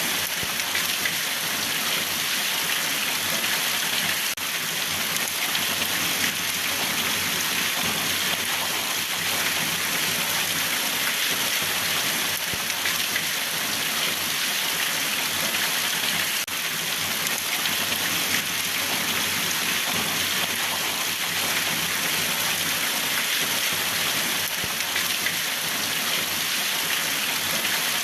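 Steady rain falling and pattering on a surface, an even hiss of drops.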